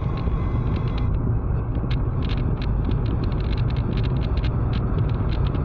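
Steady low engine and road rumble of a car being driven, heard from inside the cabin, with scattered light clicks and rattles over it.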